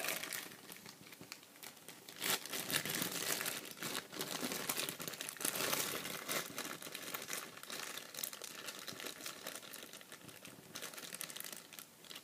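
Slime being squeezed, stretched and poked by hand, giving a continuous sticky crackling and squishing that is loudest in the first half and dies down toward the end.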